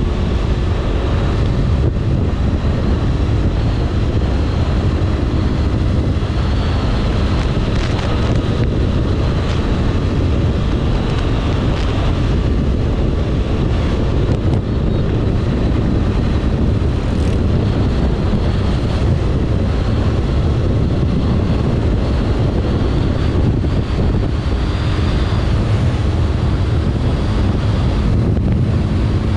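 Wind roaring over the microphone on a moving sport motorcycle, with its engine running steadily underneath while cruising at about 100 km/h.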